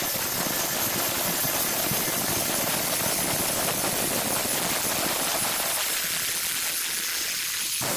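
Angle grinder running with its disc pressed against a rusty steel knife blade, a steady harsh grinding as it strips the rust, throwing sparks. The lower part of the sound thins out about six seconds in.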